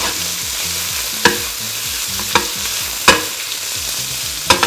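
Cauliflower gnocchi and sliced sausage sizzling in an oiled skillet as the pan is tossed, with four sharp knocks as the pan and food are jolted.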